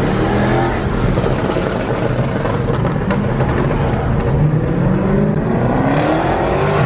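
Car engine being revved, its pitch rising in a short sweep near the start and then climbing in a long sweep that peaks near the end.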